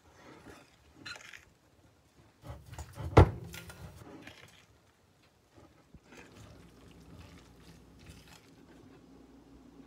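Wet vegetable batter of chopped cauliflower, greens and flour being mixed in a glass bowl, first with a utensil and then by hand, giving soft squelching and rustling noises. A single sharp knock about three seconds in is the loudest sound.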